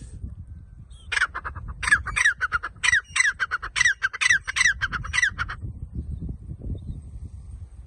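Grey francolin (teetar) calling: a rapid run of harsh, repeated notes, each sliding down in pitch. The calls start about a second in and stop about two seconds before the end, over a steady low rumble.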